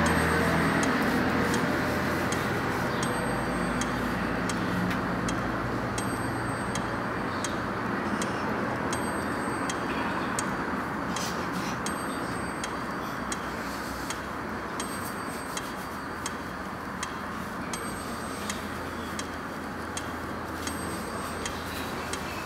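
Regular ticking, about one tick a second, over a steady background hiss. A low hum fades out in the first second or two.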